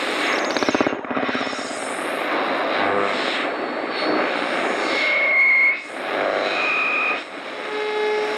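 Radio-tuning sound effect: loud rushing static with sweeping whistles and a few short steady tones, ending in a low tone.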